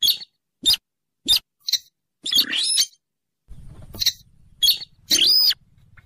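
Buff-banded rail calling: a string of short, sharp, scratchy calls about every half second, with two longer calls, one about two seconds in and one about five seconds in. A faint low rumble sits under the second half.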